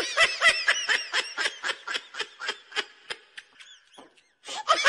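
Rapid high-pitched, squeaky laughter in short rising-and-falling bursts, about four a second. It trails off about three and a half seconds in, and a few more bursts come near the end.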